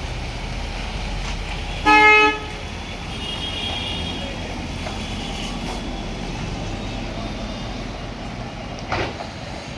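Steady low rumble of vehicle traffic, with one short, loud vehicle horn toot about two seconds in.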